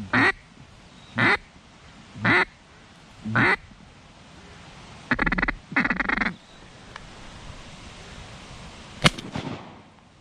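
Loud duck quacks on a duck call: four short quacks about a second apart, then two longer, drawn-out quacks. About nine seconds in comes a single sharp shotgun shot.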